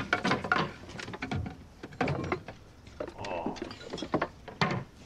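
Glass wine bottles knocking and clinking together in their case as they are handled and lifted out: a series of short, sharp clicks and knocks.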